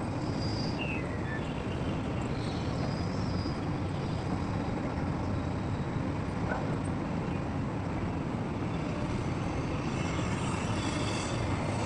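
Heavy diesel machinery running steadily with a constant low rumble that holds an even level throughout.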